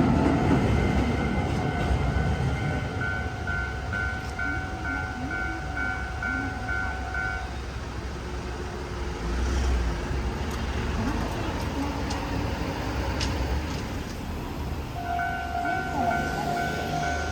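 Japanese level-crossing warning bell ringing in a steady pulse of about two dings a second, while a passing train's rumble fades away at the start. The bell stops about seven seconds in and starts ringing again near the end as the crossing is set off once more.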